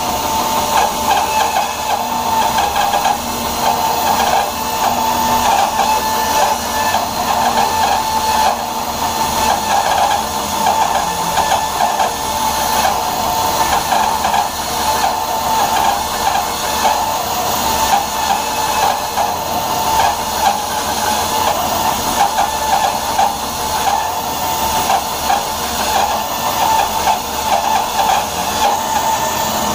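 Rikon bandsaw running and resawing a block of wood with a half-inch, 4-tooth-per-inch Timber Wolf blade, a steady motor-and-blade drone with the rasp of the teeth working through the wood. The blade is cutting slowly.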